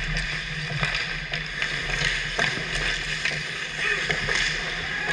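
Ice hockey play close to the goal: skate blades scraping and carving on the ice, with sharp clacks of sticks and puck scattered throughout as players crowd the net, over a steady low hum.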